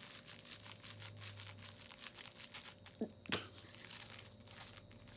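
Faint crinkling and rustling, like plastic or paper being handled, as a run of small ticks. About three seconds in come two short, sharper sounds: a brief rising squeak, then the loudest click.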